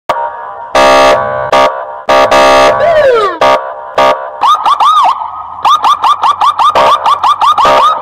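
Loud electronic police siren cycling through its tones: harsh horn blasts about a second in, a falling wail near the middle, then a fast run of short chirping yelps, about five a second.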